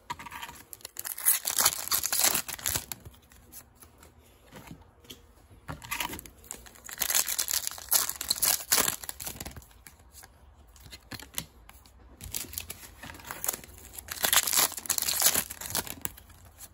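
Foil booster-pack wrappers being torn open and crinkled in the hands, in three crackly bursts with quieter handling between them.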